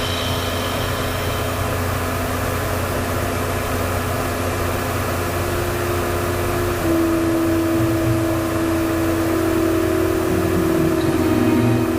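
Steady mechanical running noise like a vehicle engine, with hiss and a steady hum that grows louder about seven seconds in.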